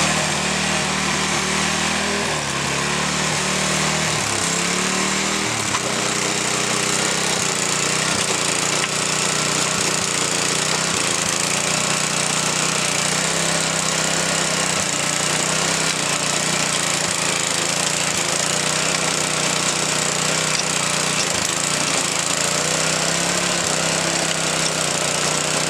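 Small gasoline engine of an Earthquake garden tiller running while tilling soil. Its pitch shifts a few times in the first six seconds, then holds steady.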